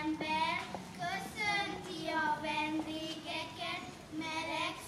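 A group of young children singing a song together in unison, in held notes with short breaths between phrases.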